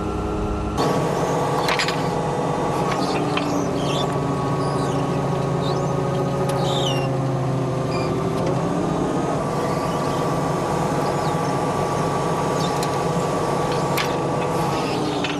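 An engine runs steadily, its pitch shifting a little about halfway through, with short high squeaks in the first half.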